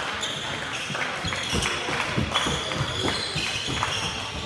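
A basketball dribbled on a gym floor, a run of thuds every quarter to half second, with short high squeaks of sneakers on the court over a steady crowd murmur in a large gym.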